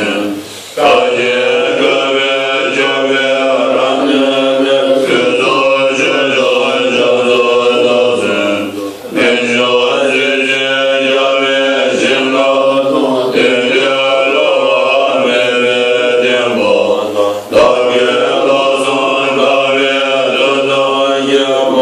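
Group of Tibetan Buddhist monks chanting together in unison, in long sustained phrases broken by short breath pauses about every eight seconds.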